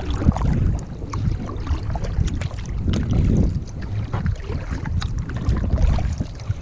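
Wind buffeting the microphone in a heavy, uneven rumble, with scattered small splashes and knocks of water against a kayak as it is paddled.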